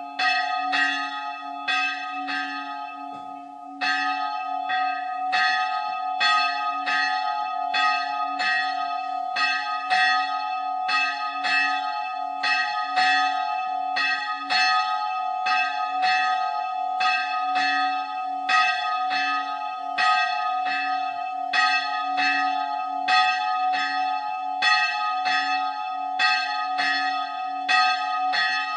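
A single church bell swung and ringing, struck a little more than once a second with its hum carrying on between strokes; the strokes pause briefly about three seconds in.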